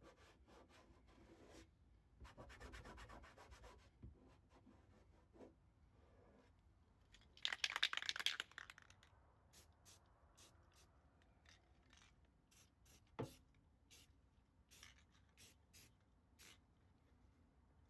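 Faint cloth rubbing and wiping on a painted aluminum panel, with a louder rushing swipe about halfway through, then scattered light ticks and a single sharp knock.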